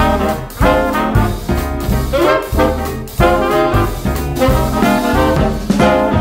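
Upbeat swing-style background music led by brass, trombone and trumpet, over a steady beat.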